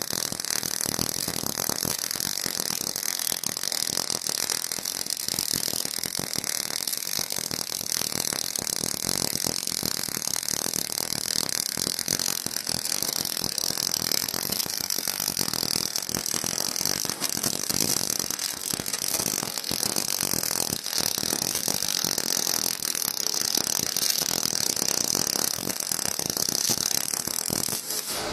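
Semi-automatic gas-shielded arc welding torch welding steel plate: a steady, continuous crackle and sputter from the arc and spatter, laying a finishing pass.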